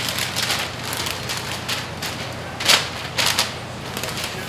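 Pink butcher paper crinkling and rustling as it is folded and pressed tight around a brisket, in uneven strokes with the loudest crinkle a little past halfway.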